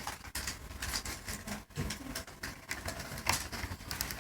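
Irregular light clicks and taps of small plastic and metal laptop parts being handled during disassembly.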